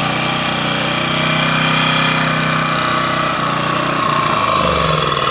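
Champion 1800/1400 W portable generator's small four-stroke engine running steadily after eight months of sitting. It is running again after being nursed at half choke until the carburettor cleared itself. Its low engine note shifts and fades near the end.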